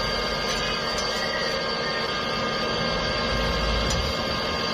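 A steady machine hum with several faint, high, steady tones running through it, holding an even level throughout.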